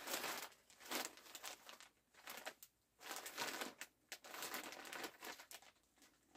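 Clear plastic poly bag around a new garment crinkling as it is handled, in several short irregular bouts.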